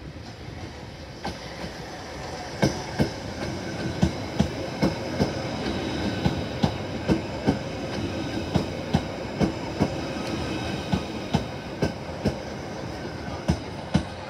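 Merseyrail Class 777 electric multiple unit running slowly past close by. Its wheels click regularly over track joints, mostly in quick pairs about a second apart, over a steady rolling noise and a faint high whine. The train grows louder about two seconds in as it draws alongside.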